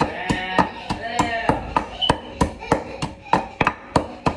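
Wooden pestle pounding garlic and chilies in a wooden mortar, a steady rhythm of knocks about three a second.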